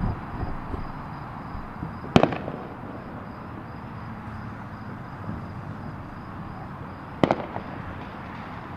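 Distant fireworks going off: two sharp bangs about five seconds apart, with a few fainter pops near the start, over a steady background noise.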